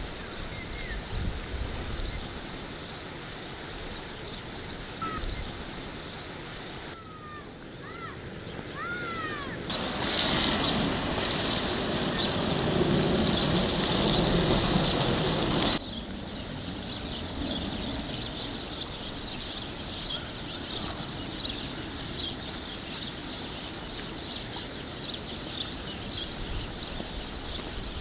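Outdoor countryside ambience, cut together in segments. There are short bird chirps, a louder stretch of even rushing noise in the middle lasting about six seconds, and a faint steady background of fine ticking calls.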